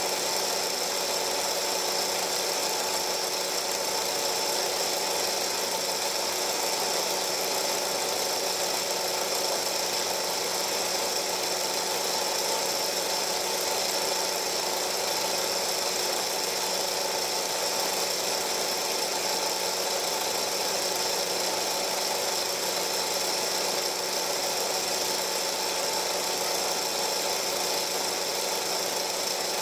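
Steady mechanical hum with hiss, typical of a film projector running while silent home-movie film is played back.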